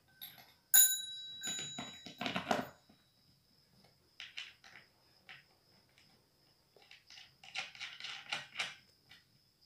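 Small chrome dome bell, of the bicycle-bell type, rings once sharply and fades over about a second, followed by a lighter second ding. Scattered light clicks and rattles of small parts being fitted by hand follow.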